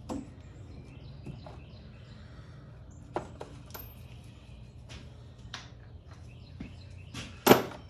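Scattered clinks and knocks of hand tools working on dirt bike parts, with one sharp, loud knock near the end.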